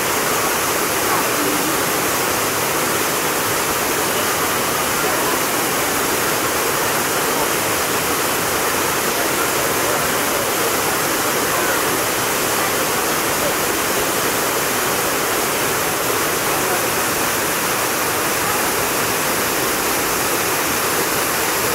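Dzhur-Dzhur waterfall: falling water making a steady rush with no let-up.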